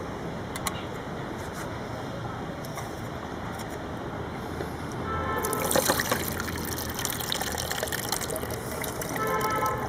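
Water pouring and splashing over cashew nuts to soak them, with small clicks and knocks; the water gets louder and brighter from about halfway through.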